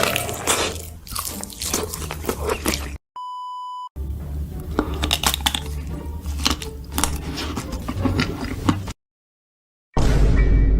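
Close-miked biting, crunching and chewing of food over background music, cut about three seconds in by a steady one-second bleep near 1 kHz, and broken off by a second of silence near the end.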